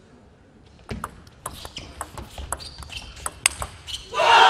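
Table tennis rally: the ball clicks sharply and irregularly off the paddles and the table, about a dozen hits over three seconds. Near the end the rally stops and loud shouting breaks out as the point is won.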